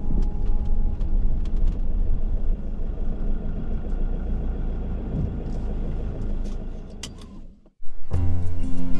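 Steady low rumble of a vehicle running, fading out about seven seconds in; music starts shortly before the end.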